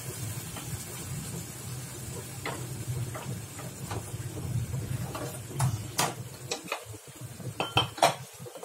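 Cooking utensils clinking and scraping against pans while the masala is stirred, a few sharp knocks at first and then many more in the second half, over a low steady hum.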